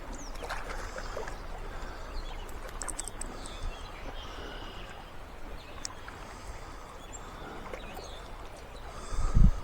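Outdoor background noise with faint, scattered bird chirps, and a brief low rumble near the end.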